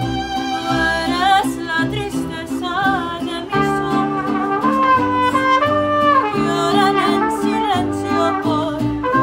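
Live mariachi music: a woman sings a slow melody with vibrato over regularly strummed guitar and vihuela chords.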